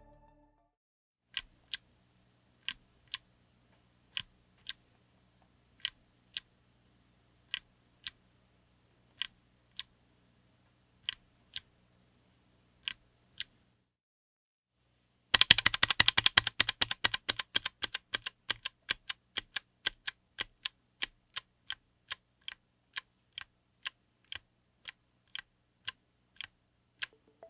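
Kailh BOX Autumn click-bar clicky switches, all-polycarbonate, in a full keyboard. First come slow single keystrokes, each giving a pair of sharp clicks, one on the press and one on the release, about a second and a half apart. After a short pause comes fast typing, a dense run of clicks that thins to a steady few strokes a second.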